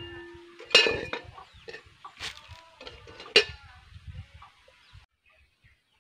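Metal lid clanking against a metal cooking pot as it is lifted off and set back on, several sharp clangs with a ringing tone. The loudest clangs come about a second in and at about three and a half seconds.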